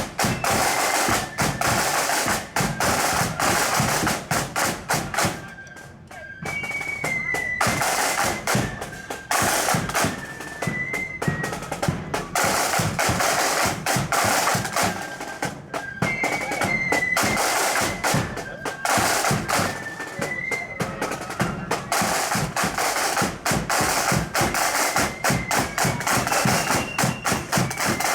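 Marching flute band playing a march: flutes carry a high melody over rapid snare drum rolls and bass drum beats. The music drops away briefly about six seconds in, then the tune starts again.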